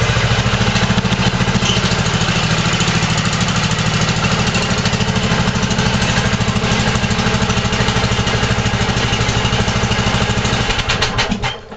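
Yard Machines 14.5 hp riding lawn tractor's engine running steadily with an even pulse, just after a cold start at 19 °F. It is switched off near the end and dies away.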